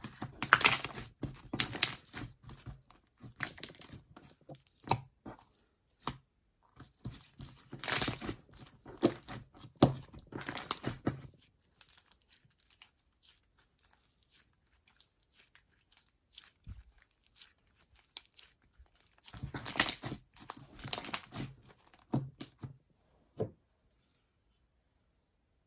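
Slime with shaving foam mixed in being stretched and squeezed by hand, making crackling, tearing sounds in bursts, with a quieter stretch in the middle and one click near the end. The foam makes the slime keep tearing.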